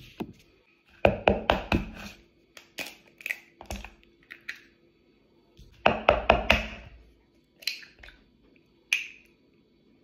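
An egg being knocked against the rim of a mixing bowl to crack it: a quick run of sharp taps about a second in, another around six seconds in, then a few lighter clicks as the shell is broken open.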